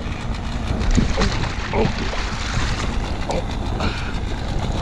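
Wind buffeting the microphone in a low rumble, with water lapping around the kayak.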